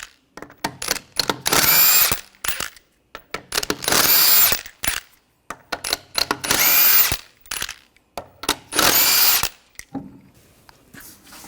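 A handheld power tool with a 21 mm socket spinning the lug nuts off a wheel, in four bursts of about a second each, each with a high whine. Between the bursts come short clicks and knocks as the nuts and socket are handled.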